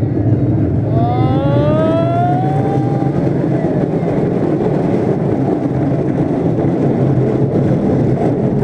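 Roller coaster car running along its track, a loud steady rumble and rush of wheels and air. About a second in, a high-pitched tone rises for about two seconds over the rumble.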